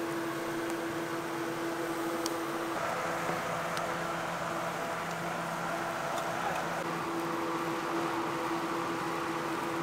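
A steady mechanical hum with a held tone. A second, lower tone joins about three seconds in and drops out around seven seconds, and a few faint high clicks come through.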